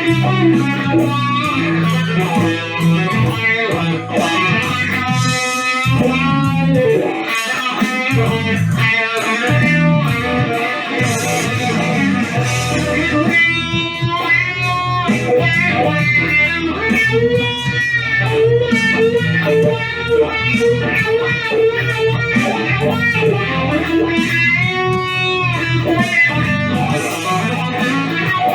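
Electric guitar played through a wah pedal, riffing continuously, with the wah sweeping the tone up and down several times.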